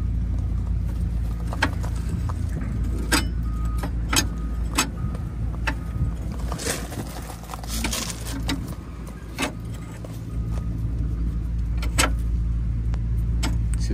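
Irregular light clicks and clinks as a battery hold-down hook insert and its bolt are handled and lined up against the bracket, with a short rustle midway, over a steady low hum.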